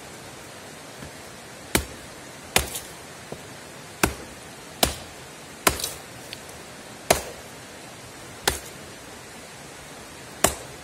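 Benman survival axe's carbon-steel blade chopping a thin dry branch against a log: eight sharp strikes at uneven intervals, a few followed by a lighter knock.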